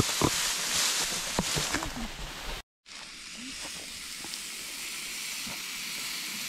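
Rustling through long grass, then after a sudden cut about two and a half seconds in, bacon sizzling in a steady hiss on a hot griddle plate over a portable gas stove.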